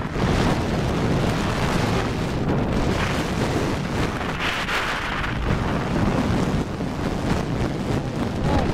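Steady rush of wind buffeting the microphone in flight, with a paramotor's two-stroke engine running underneath.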